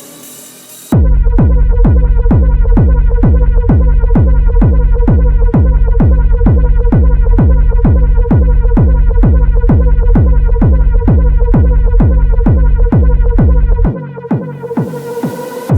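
Techno sample loop: a kick drum on every beat, about two a second, each with a falling pitch, under a held buzzing tone. About fourteen seconds in the kick drops out and a rising noise sweep leads into the next sample.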